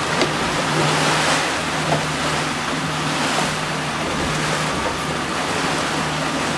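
Outboard-powered boat running at speed over open sea: a steady low engine hum under the rush of water from the wake and wind.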